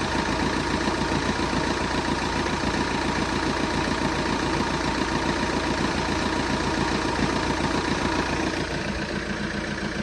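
Vehicle engine idling steadily with a fast, even pulsing and a knocking noise, a bit quieter near the end.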